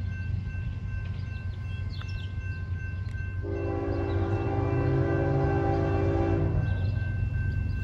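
Diesel locomotive air horn of a Norfolk Southern train, sounding one long chord-like blast that starts about three and a half seconds in and lasts about three seconds. Under it runs a steady low rumble that slowly grows louder.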